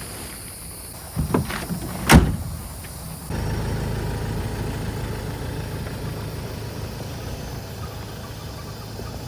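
A couple of knocks and then one loud thump, like a car door shutting, about two seconds in; a second later a car engine's steady low running hum begins abruptly and carries on.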